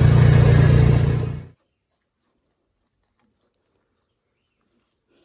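A vehicle engine running steadily, then cut off sharply about a second and a half in, leaving near quiet with faint outdoor sounds.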